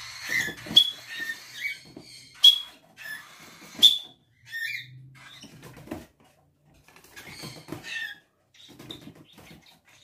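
Young budgerigars chirping and squeaking in short bent calls, with three short sharp high peeps about a second and a half apart early on, the loudest sounds.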